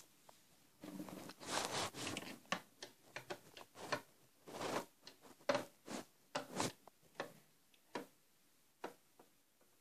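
Faint, irregular light plastic taps and rustles: a Playmobil figure is moved by hand across the plastic dollhouse floor and up its plastic stairs.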